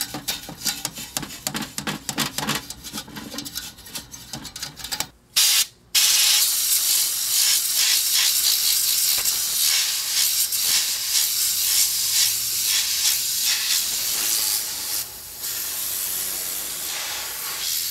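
Compressed air blowing dust out of a furnace blower's squirrel-cage wheel, vane by vane. It opens with a few seconds of rapid, irregular clicking and a short blast about five seconds in, then a loud, steady hiss of air from about six seconds on.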